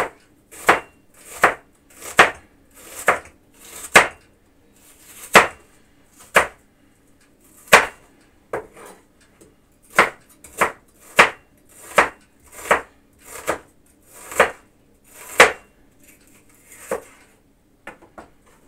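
Kitchen knife slicing an onion on a wooden cutting board: a steady run of sharp knocks as the blade meets the board, about one cut a second, thinning out near the end.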